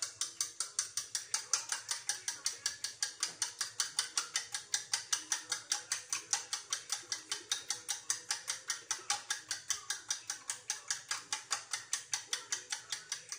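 Eggs beaten briskly in a ceramic bowl, the utensil clinking against the bowl in a fast, even rhythm of about five strokes a second. It stops just before the end.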